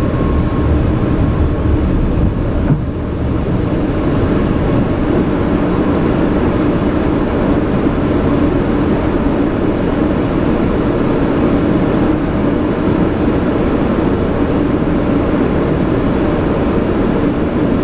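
Steady rushing noise inside an Airbus A340 flight deck on final approach: airflow and engine noise. There is a brief dip about three seconds in.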